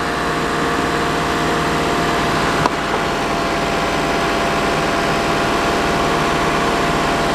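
BMW N63 twin-turbo V8 running steadily at about 2000 rpm with its intake manifolds off, the owner chasing a persistent cylinder 7 misfire that he traces to leaking, carbon-fouled intake valves. A single sharp click about a third of the way in.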